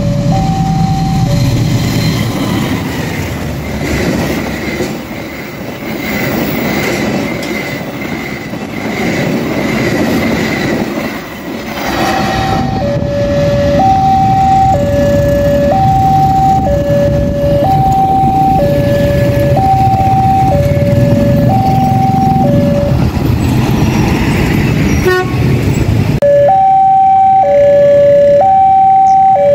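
A train passes with a loud rumble through the first twelve seconds or so. After that a railway level-crossing's electronic warning siren is plainly heard, alternating between a high and a low tone about once a second. The siren breaks off for a few seconds near the end, with a sharp click, then starts again.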